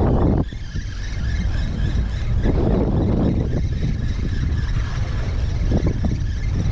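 Wind buffeting the microphone: a steady low rumble that swells in gusts a few times.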